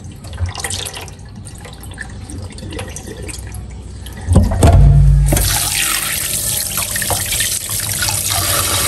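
Kitchen tap running steadily onto fish and hands in a basin as they are rinsed, starting about five seconds in after a loud low bump. Before that, softer sloshing and handling of the fish in the water.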